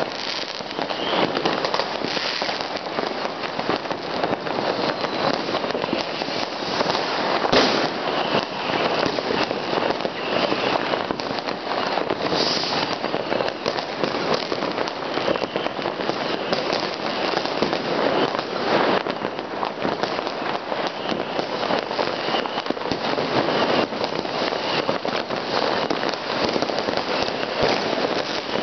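Many fireworks and firecrackers going off at once: a dense, continuous crackling and popping with scattered louder bangs, the loudest about seven and a half seconds in.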